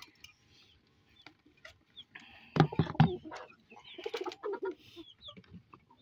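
Domestic hens clucking, with small cage birds chirping. A short loud noise comes about two and a half seconds in.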